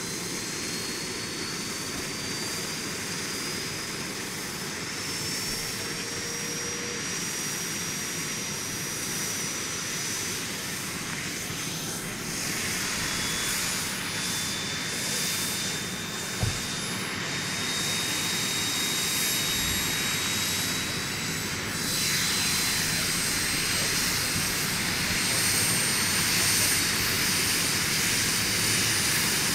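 A large-scale radio-controlled AS350 Écureuil model helicopter spooling up on the ground: a high whine rising slowly in pitch over a steady rushing noise, getting louder as it goes. One short knock comes about halfway through.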